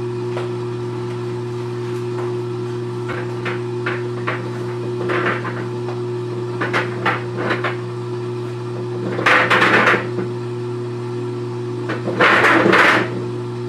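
Top-loading washing machine running with a load of golf balls in its drum. A steady hum runs under scattered sharp knocks as the hard balls strike the drum, and two loud bursts of rapid rattling clatter come past the middle and near the end.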